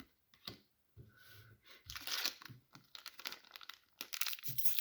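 Foil trading-card booster pack wrapper being torn open and crinkled in irregular bursts of tearing and crackling, loudest about two seconds in and near the end.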